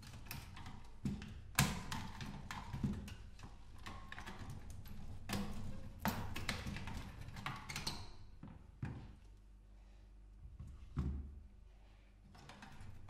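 Hand-dismantling a CRT television chassis: irregular clicks, clinks and knocks of metal and plastic parts being worked loose from the circuit board and handled, with a duller thump about eleven seconds in.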